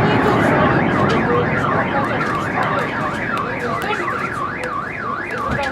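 Car alarm sounding with a rapid warbling siren that sweeps up and down in pitch about two to three times a second.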